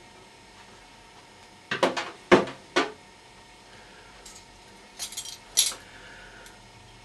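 Sharp clinks of small metal and glass items being handled on a kitchen worktop. A quick cluster of about five clinks comes a couple of seconds in, and a few fainter ones follow near the middle.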